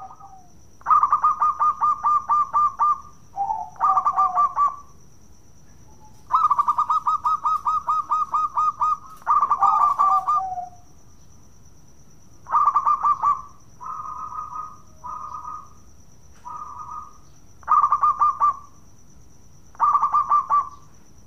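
Zebra dove (perkutut) singing its bekur cooing song: about ten bouts of rapid staccato cooing notes, each half a second to three seconds long, with short pauses between.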